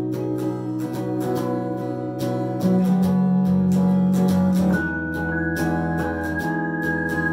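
Electric guitar and organ-toned keyboard played together in a live band rehearsal, with a steady rhythm of guitar strokes over held keyboard chords. About three seconds in, a loud low held note comes in for two seconds. After that a high note is held.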